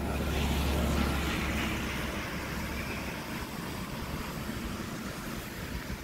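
A vehicle passing by: a low rumble with a hiss of engine and tyre noise that swells about a second in and then slowly fades into steady street noise.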